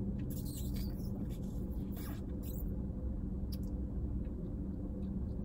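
A thick milkshake being sucked through a straw, with a few faint short slurps and sips, over a steady low hum inside a car.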